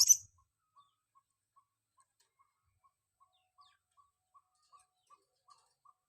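Blue-crowned hanging parrot (serindit), used as a lure bird, calling: a brief shrill burst right at the start, then a run of faint short notes, about two or three a second, growing louder near the end.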